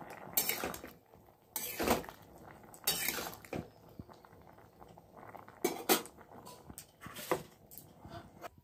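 Spatula scraping and clinking against a pan while stir-frying cauliflower and potato pieces in oil, in irregular strokes about a second apart.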